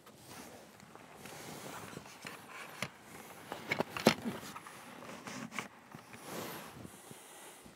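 Metal tent poles being handled and fitted inside a canvas camper tent: canvas rustling and scraping, with a few sharp clicks and knocks, the loudest about four seconds in.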